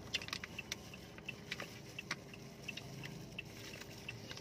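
Two people chewing ripe mango pieces, with wet mouth smacks and plastic bags crinkling: scattered short clicks over a low steady hum inside a car cabin.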